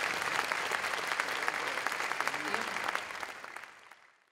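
Audience applauding, with a few voices among the clapping, fading out near the end.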